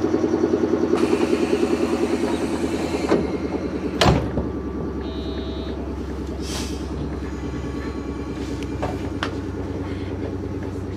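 Underfloor air compressor of a JR 113-series electric train running during a station stop, a fast rhythmic chugging. A hiss sounds for a couple of seconds near the start, and a sharp thump about four seconds in, after which the chugging is quieter.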